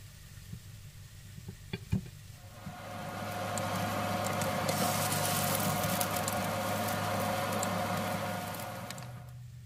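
Tomato rings filled with egg batter sizzling in hot oil in a frying pan. The sizzle swells up about two and a half seconds in and dies away near the end. Before it there are a couple of light clicks.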